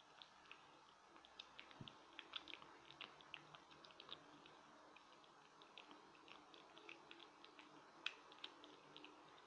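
Cat eating chunks of food from a plate: faint, irregular wet clicks of chewing and licking, several a second, with one sharper click about eight seconds in.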